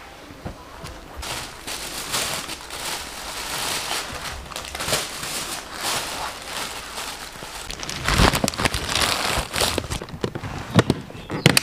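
Clothes and plastic bags rustling and crinkling as a hard-shell suitcase is packed, with a few knocks about eight seconds in. Sharp clicks near the end as the suitcase's latches are snapped shut.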